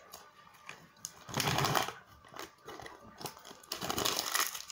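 A paper sticker packet being torn open by hand and the stickers inside handled, rustling and crackling in two bursts, about a second in and again near the end.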